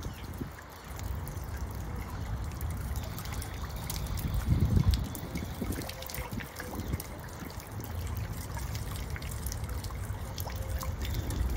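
Water trickling steadily in a shallow tiled garden fountain, running over the tiles around its marble pedestal. There is a low gust of wind on the microphone about halfway through.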